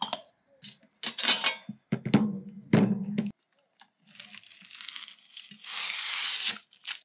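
A glass lid clinks on a ribbed glass jar, followed by a few handling knocks and rattles. From about four seconds in, blue protective plastic film is peeled off a stainless steel tray with a tearing hiss that grows louder.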